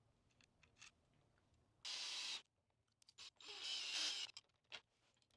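A screwdriver turning a countersunk Phillips bolt through a metal adapter plate against a wrench-held nut: a few light clicks, then two short rasping bursts of metal-on-metal tightening about a second and a half apart, with small clicks between.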